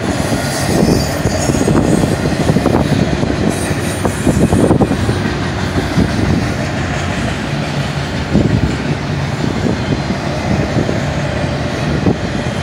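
Double-stack intermodal well cars of a fast freight train rolling past: a continuous rumble and rattle of steel wheels on rail, broken by irregular knocks and clanks.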